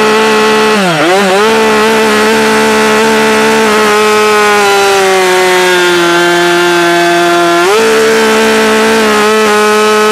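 Husqvarna 572 XP two-stroke chainsaw at full throttle, cutting through a thick log. The engine note dips briefly about a second in, then sags slowly as the chain loads up in the cut, and climbs back quickly about eight seconds in.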